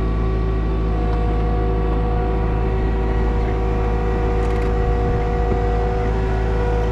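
Vehicle engine running at a steady, unchanging speed: a constant low drone with a few steady tones above it.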